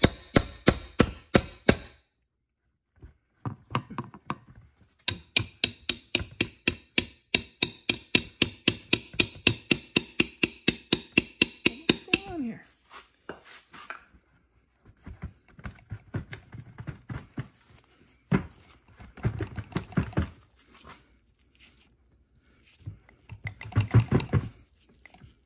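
Hammer blows on a steel punch set in a John Deere L130 front wheel hub, driving out the old bushing. There is a short run of strikes, then a long steady run at about four to five blows a second with a metallic ring, then a few scattered bunches of heavier blows.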